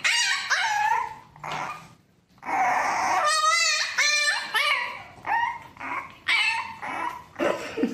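Puppy crying: a run of high whines and yelps that bend up and down in pitch, with one long wavering cry about three seconds in and a short pause just before it.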